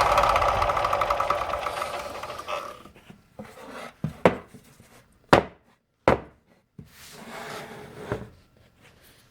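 Electric sanding machine running, then fading out over about the first three seconds as it winds down. After it stops, several sharp knocks and clunks, with a short rubbing sound near the end.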